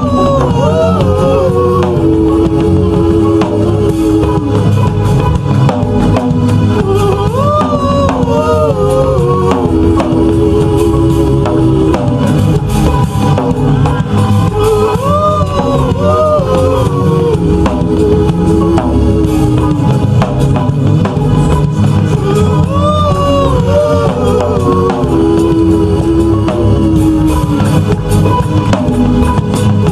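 Gospel music with singing over a steady drum beat.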